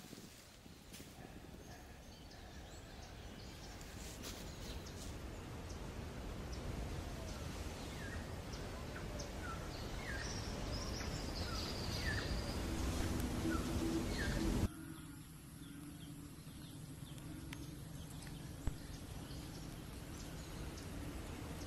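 Outdoor field ambience: a rumbling wind-like noise, slowly growing louder, with scattered short bird chirps. About fifteen seconds in it cuts abruptly to a quieter, steadier background with a single click.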